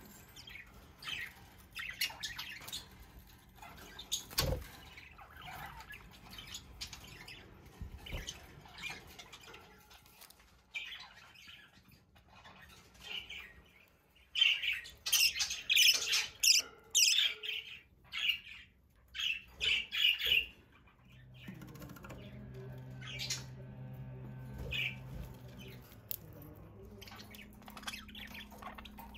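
Pet budgerigars chirping and squawking in short, scattered calls, breaking into a burst of loud, busy chattering about halfway through. A low steady hum comes in about two-thirds of the way through and stays under the fainter chirps that follow.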